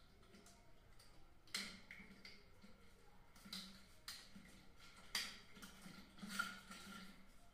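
Faint plastic clicks and taps from a CHINT NC1 contactor as its terminal and cover parts are pressed into place by hand, about four sharp clicks, the loudest near the end.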